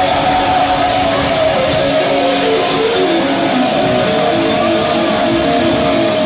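Rock music: an electric guitar plays a melody line note by note over the band, settling on a long held note in the second half.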